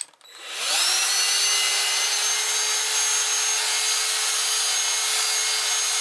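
Dyson DC16 Animal handheld vacuum cleaner switched on with a click, its motor spinning up within the first second to a steady high whine over rushing air as it sucks debris up through a 3D-printed extension attachment and extension tube.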